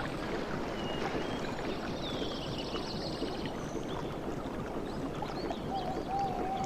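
Water lapping and gurgling steadily, with birds calling over it: a fast high trill about two to three seconds in and a lower, wavering whistle near the end.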